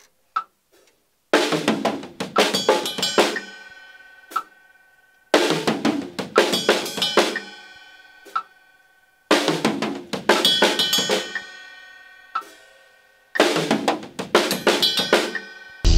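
Acoustic drum kit playing a short two-beat fill four times over: a snare stroke and a run of tom and floor-tom strokes, then snare strokes alternating with hits on the cymbal bell. Each pass lasts about two seconds and rings out before the next, and a single light click comes about a second before each pass.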